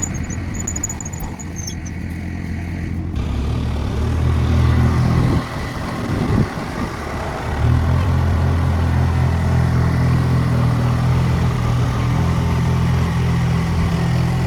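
A first-generation Dodge's engine idling after a cold start. Its note changes unevenly, with a brief dip and a jolt, then runs steadier and a little louder from about eight seconds in.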